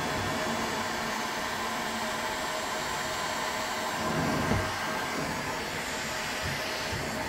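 Electric heat gun running, a steady blowing hiss with a faint steady whine, as it heats the cracked edges of a plastic blow mold to soften them so a patch will bond.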